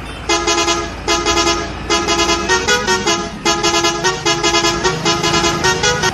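Multi-tone musical vehicle horn playing a quick tune of short, repeated notes on two or three pitches.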